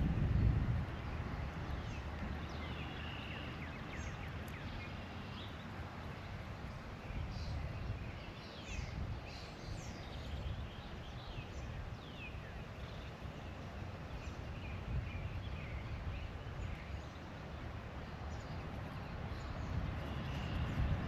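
Outdoor ambience: scattered short bird chirps and calls, busiest midway through, over a steady low rumble.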